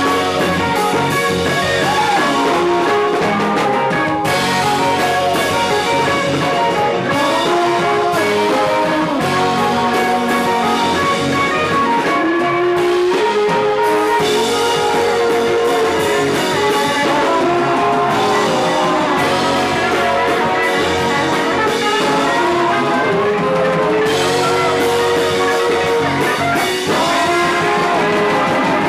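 Live band playing an instrumental passage: drums and guitar under a melody line that slides up and down, steady and loud throughout.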